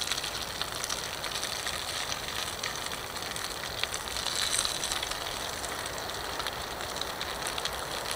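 Grated boiled potato sizzling in hot olive oil in a frying pan over a campfire, a steady frying hiss with a few faint crackles.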